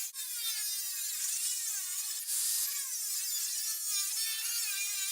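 A 4 1/2-inch angle grinder with a metal cut-off disc cutting an opening, its high whine sagging and recovering in pitch over and over as the disc is loaded in the cut.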